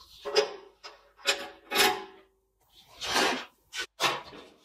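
A socket ratchet working a rusted bolt on an old motorcycle frame, heard as a run of short rasping, scraping bursts of metal on metal with brief gaps between them.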